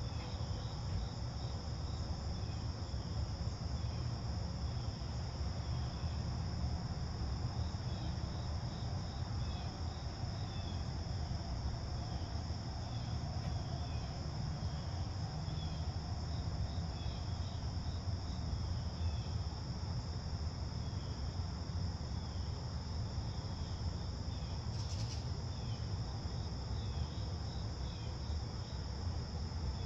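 Crickets trilling in a steady, continuous high chorus, with scattered faint bird chirps over a low background rumble.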